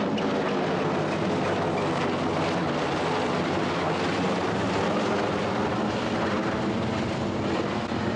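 Large helicopter flying past overhead: a steady drone of its rotors and engines.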